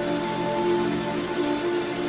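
Steady rain, mixed with soft background music of slow, held notes.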